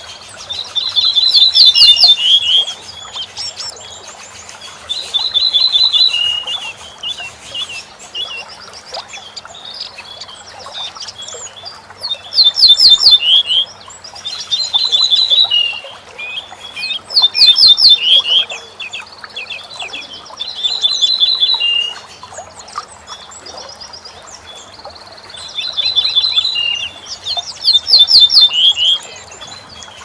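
A bunting singing, about eight short song phrases of one to two seconds each with gaps between: each phrase is a quick run of repeated high notes that ends on lower notes.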